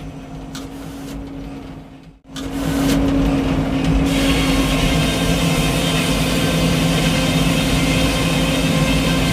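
Engine of a Frick circular sawmill running steadily with a low hum. It drops out briefly about two seconds in and comes back louder, with a hiss added from about four seconds on.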